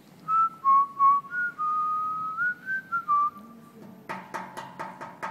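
A person whistling a short tune of a few held notes, stepping and gliding between pitches. About four seconds in, quick sharp taps start, about five a second.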